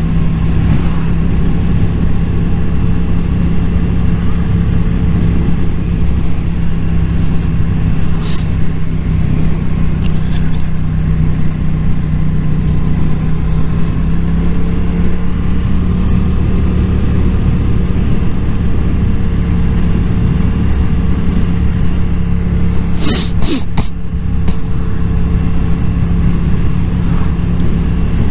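Yamaha motorcycle engine running steadily while riding at moderate speed, its pitch drifting gently with the throttle. A short cluster of sharp cracks comes about 23 seconds in.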